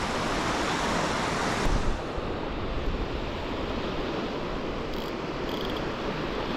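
Waves breaking on a sandy beach, with wind buffeting the microphone. There is a brief knock about two seconds in, after which the sound is duller.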